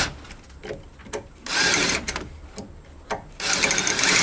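Cordless drill boring into a rusted, seized anti-roll bar link nut in short bursts: a short run about a second and a half in, then a longer one starting near the end, with sharp clicks of the bit and tool in between.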